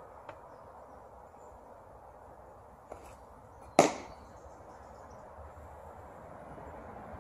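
A pitched baseball smacking into the catcher's mitt: one sharp pop about four seconds in, with a much fainter click a second before it.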